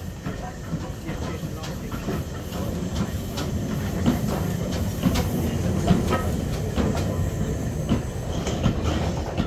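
BR Standard Class 4 2-6-0 steam locomotive rolling slowly past at close range: a low rumble with irregular clanks and clicks of the wheels and motion over the rail joints, getting louder toward the middle as it passes.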